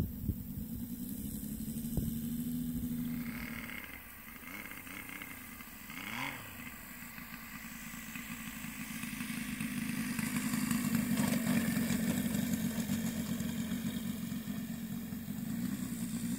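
Saito FA-450R3 three-cylinder radial four-stroke glow engine of a quarter-scale RC Waco biplane running at low throttle on the ground, dipping quieter in the middle and growing louder about ten seconds in.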